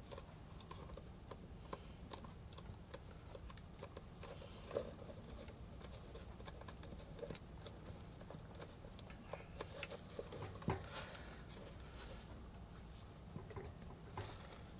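Faint handling noise of hands pressing and smoothing a rubber climbing shoe: light rustles and small clicks, with two louder knocks about five and eleven seconds in, over a low steady hum.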